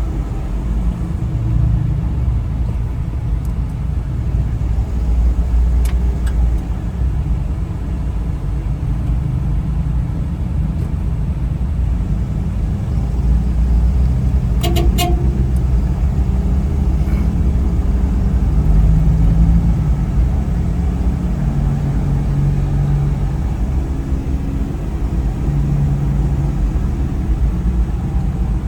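Steady low rumble of a road vehicle in motion, with a brief cluster of sharp clicks about halfway through.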